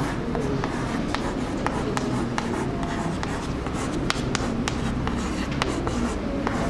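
Chalk writing on a chalkboard: a run of quick taps and scratches as words are chalked up, over a steady low hum in the room.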